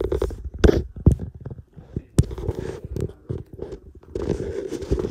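Phone microphone handling noise: irregular knocks, thumps and scrapes as the phone is moved and bumped, with a stretch of rustling near the end.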